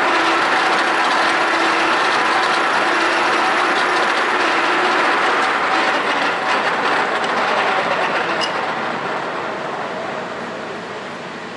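Jafo FYD-32 milling machine running, its cutter milling a C45 steel bar with a dense, loud mechanical rattle and gear noise. About halfway through, the noise grows gradually quieter as the cut ends, with one sharp click near the end.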